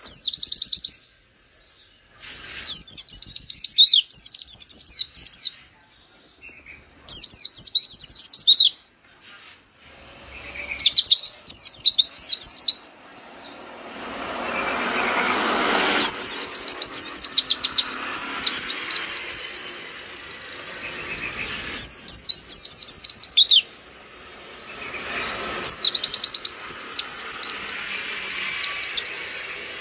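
Caged white-eye (pleci) singing: repeated fast, high twittering bursts, each one to three seconds long, with short pauses between. A rushing background noise swells about halfway through and lingers under the song.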